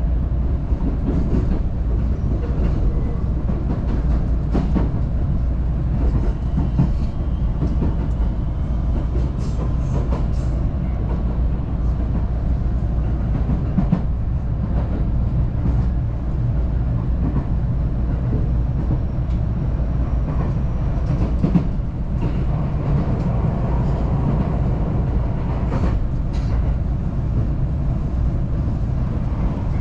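Local electric train running between stations, heard from inside the passenger car: a steady low rumble of wheels on rail, with scattered clicks of the wheels over rail joints.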